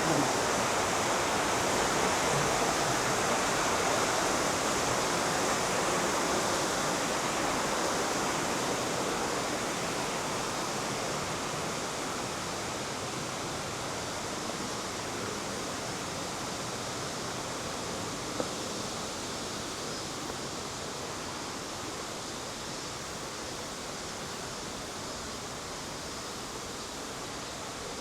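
Rushing river water in a mountain gorge: a steady hiss that slowly fades, with one brief click about two-thirds of the way through.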